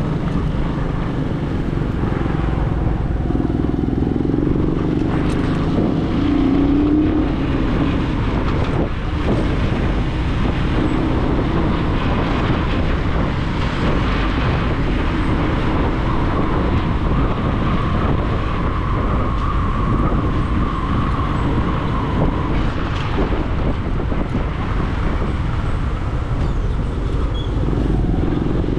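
Motor vehicle running steadily, engine and road noise with a heavy low rumble.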